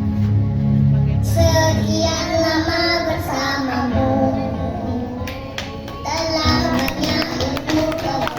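A preschool children's choir singing together over instrumental accompaniment. The children's voices come in about a second in and break off briefly past the middle before resuming.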